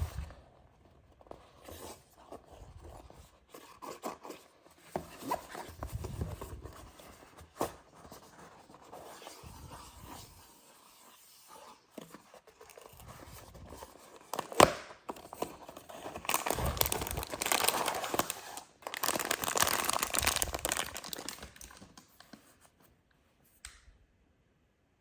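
Blind-box toy packaging being handled, torn open and crinkled: irregular rustling and crinkling, a sharp click about fifteen seconds in, then two longer stretches of tearing.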